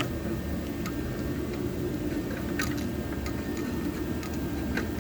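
A few light, scattered clicks and knocks from the plastic coolant overflow bottle being handled and seated in its mount, over a steady low hum.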